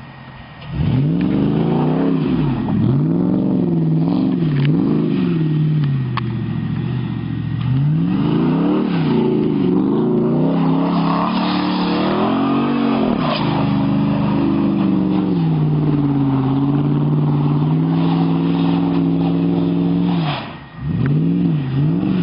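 Jeep Grand Cherokee SRT8's V8 engine revved hard through donuts on snow, its pitch swinging up and down again and again. In the middle it holds a steady high rev for several seconds, and near the end it drops away briefly before revving up again.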